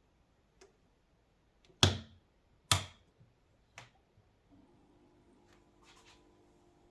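Several sharp clicks, the two loudest about a second apart. About four and a half seconds in, a steady low electrical hum made of several even tones sets in, with a brief crackle soon after: an OSRAM HQL 80 W mercury vapour lamp and its ballast being powered up and the arc striking.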